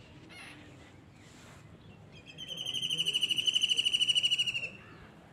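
An animal's high-pitched trill of rapid pulses, about ten a second, beginning around two seconds in and lasting about two and a half seconds.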